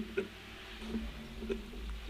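Bicycle being ridden: a low rumble with a hum and uneven rattling clicks.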